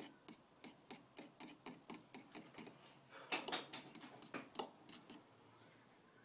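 Metal screwdriver clicking and scraping against a strut's top suspension bearing as axle grease is worked into it: a string of light clicks, about three a second, with a few louder scrapes about three to four and a half seconds in.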